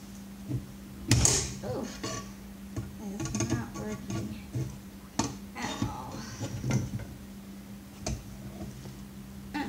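Flat screwdrivers prying and scraping against a stubborn part of a vacuum motor being torn down: irregular metal clicks, knocks and scrapes, the loudest about a second in, over a steady low hum.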